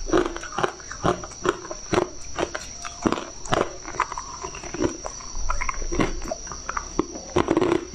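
Purple ice chunks being chewed and crunched in the mouth, picked up by a clip-on microphone: irregular crisp crunches, a few a second.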